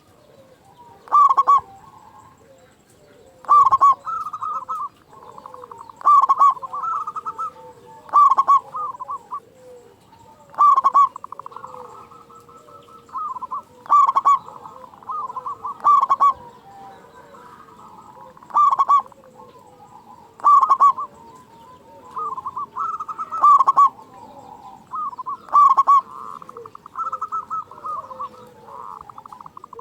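Zebra dove (perkutut) singing: a loud, rhythmic cooing phrase repeated about every two seconds, with fainter calls in between.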